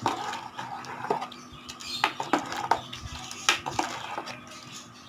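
A spoon stirring thick kootu (cooked chana dal, snake gourd and ground coconut) in a metal pot. It gives scattered scrapes and clinks against the vessel.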